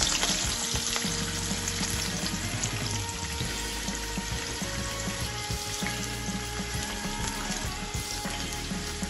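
Potato wedges deep-frying in hot mustard oil in a pan: a steady sizzle and crackle of bubbling oil.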